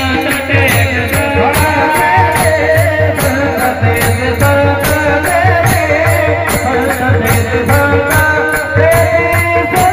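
Devotional folk song: a male voice singing into a microphone over a steady beat of small brass hand cymbals (taal) clashed by a group of players, with a low pulse underneath.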